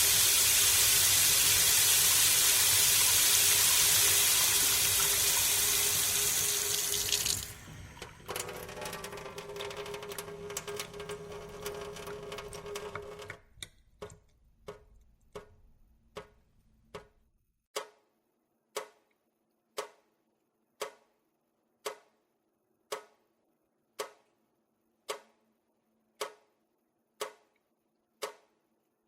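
A run of separate effects. First comes about seven seconds of loud, steady rushing water. Then there is a quieter hiss with a steady low hum, and from about halfway, sharp ticks that settle into an even beat of about one a second.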